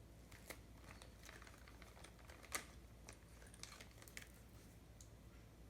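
Faint, scattered light clicks of small electronic components such as resistors being handled and set down, with one slightly louder click about two and a half seconds in.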